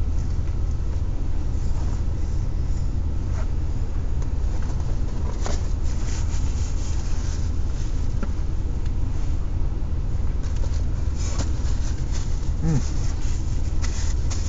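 Car engine idling, heard from inside the cabin as a steady low hum. Now and then come faint clicks and rustles of someone eating.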